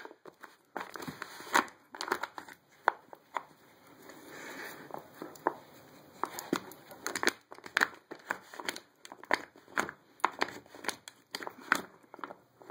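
Irregular clicks, taps and scrapes of a dog's claws and nose on a wooden treat-puzzle board, with the wooden pegs and sliders knocking in their slots.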